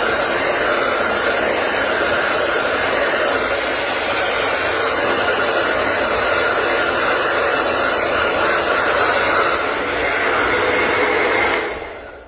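Loud, steady rushing noise of an air-moving electric appliance, with no breathing rhythm in it. It dies away about half a second before the end.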